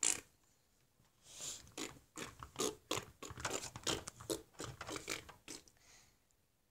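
Handling noise: a string of small, irregular, quiet clicks and crackles as a small plastic doll is moved about close to the microphone, stopping a little before the end.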